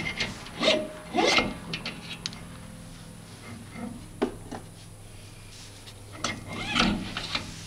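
Ford Ranger brake rotor and hub handled and spun by hand on its wheel bearings: short bursts of rubbing and scraping, a sharp click about four seconds in, and a longer rasping whirr near the end as the rotor turns.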